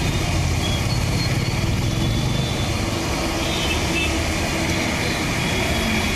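Street traffic wading through floodwater: vehicle engines running steadily over water sloshing and splashing around the wheels.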